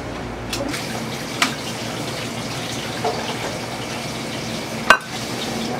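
Restaurant kitchen background: a steady rushing noise, like running water or extraction, with a couple of sharp clinks of utensils, one about a second and a half in and a louder one near the end.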